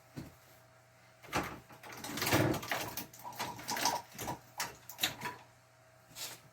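Small hard objects being handled and set down on a workbench: a series of irregular clicks, knocks and scrapes, loudest a little over two seconds in.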